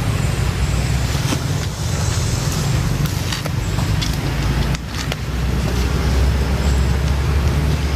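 A motor vehicle running: a steady low rumble, with scattered light clicks and rattles over it.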